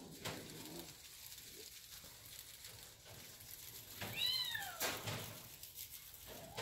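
Havana Brown kitten giving one short, high meow that rises and falls in pitch, about four seconds in. A sharp click follows just after it.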